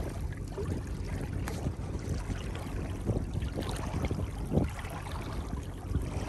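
Wind buffeting the microphone in a steady low rumble, with small wavelets lapping and trickling at the edge of a sandy shore.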